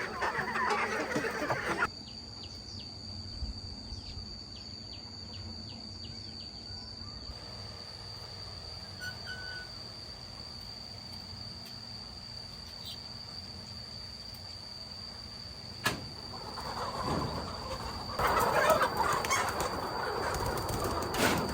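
Flock of chickens clucking and chirping, dense at the start, quieter in the middle and rising again over the last few seconds, over a steady high-pitched whine.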